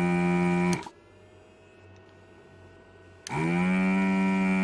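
Vacuum pump of a Katsu ZD8915 desoldering station running as the gun's trigger is pulled to suck solder from a circuit board's pads: a loud, steady hum that cuts off just under a second in, then starts again about three seconds in, rising briefly in pitch as it spins up.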